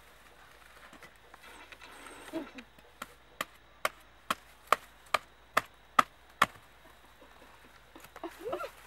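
A large knife chopping into palmyra palm fruits: nine sharp, even strikes about two a second that then stop.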